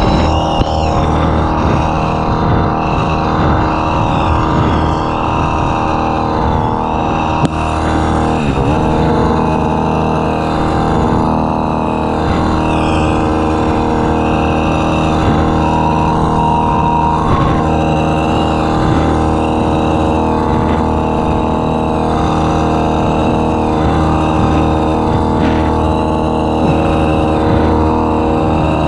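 Pole hedge trimmer running steadily at constant speed as its blades work along the top of a hedge.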